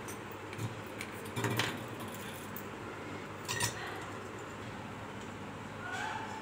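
Small metal lamp-fitting parts (screws, bracket, brass backplate) clinking and tapping as they are handled, with a couple of light clinks over a steady background hiss.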